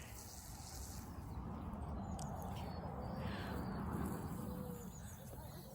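Faint bird chirps over a low, steady rushing noise that swells and then eases off near the end.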